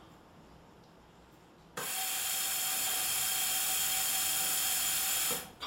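Bird Mark ventilator delivering an IPPB breath: after a quiet pause it starts suddenly, about two seconds in, with a loud steady hiss of gas flow carrying a faint whistle. The hiss runs for about three and a half seconds and cuts off sharply. The cut-off is the machine cycling off at its set pressure, a little over 15.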